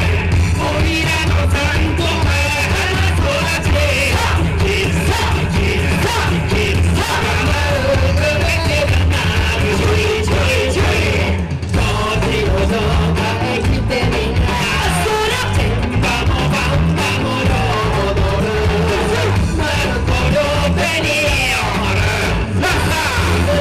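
Loud, upbeat yosakoi dance music with singing, rock-style, and shouted calls over it.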